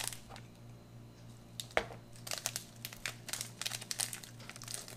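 A wrapped tea packet being handled and torn open by hand: a run of irregular crinkles and small tearing crackles, with one sharper crackle a little under two seconds in.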